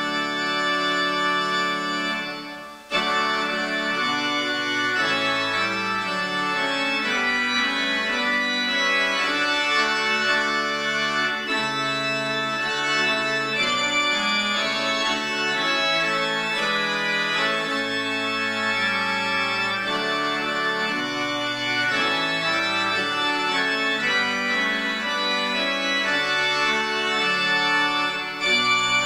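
Church organ playing slow, held chords. The sound drops away briefly just before three seconds in, then resumes.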